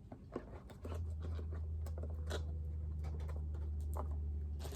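Scattered light taps and rustles of items being moved around in an unboxing kit box. A steady low hum sets in about a second in.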